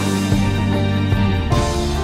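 Instrumental background music, with a held low bass note under changing melody notes.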